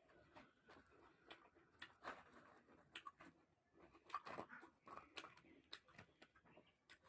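Faint chewing of puri and chana dal sabji, with wet mouth clicks and smacks coming at an irregular pace.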